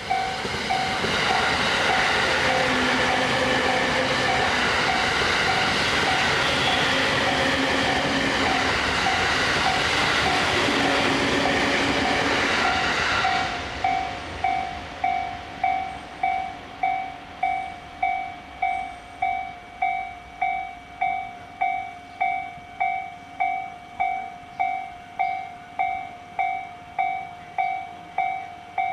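Level-crossing warning bell ringing a steady repeated ding, about one and a half strikes a second, while a train runs over the crossing with a loud, even rumble. The train noise stops suddenly about halfway through, and the bell keeps ringing on its own.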